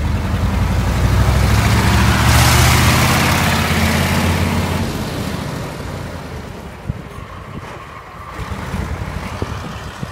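Diesel engine of an old city bus pulling away from the stop, loudest about two to three seconds in as it drives off. The engine note stops standing out about halfway through, and the sound fades as the bus moves away down the road.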